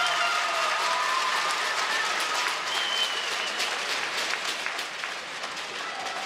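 Arena crowd applauding, a dense, steady patter of many hands clapping, with a few voices calling out over it.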